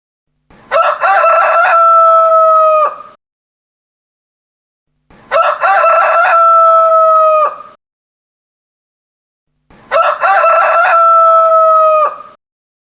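Rooster crowing three times, about four and a half seconds apart. Each cock-a-doodle-doo has a broken opening and a long held final note that cuts off sharply, and the three crows look identical, the same crow repeated.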